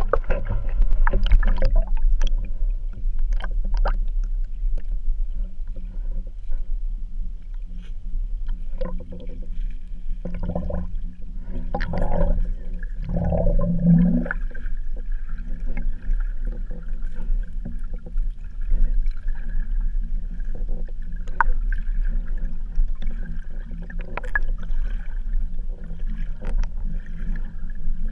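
Muffled underwater ambience: a steady low rumble with scattered clicks and ticks. A few louder swells come about halfway through, ending in a short rising whoop, and a faint steady hum runs in the second half.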